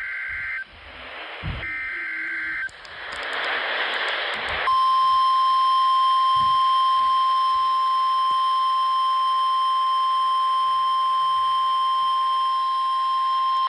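NOAA Weather Radio alert coming through a radio receiver: the tail of the SAME digital header, two short shrill two-pitch data bursts with radio static hiss between them, then about five seconds in the steady single-pitch 1050 Hz Warning Alarm Tone sounds continuously for about nine seconds. The tone signals that a warning broadcast, here a severe thunderstorm warning, is about to follow.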